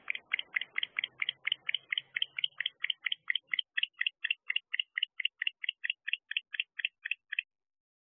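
Barn owl, believed to be a male, giving a courting call: a rapid, even series of short high chirps, about five a second, that stops shortly before the end.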